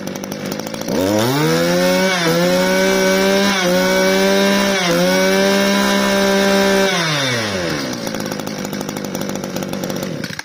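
Yanmar 25 cc two-stroke brush cutter engine idling, then revved up about a second in and held at high speed with three brief dips in revs. It drops back to idle about seven seconds in and stops abruptly at the end.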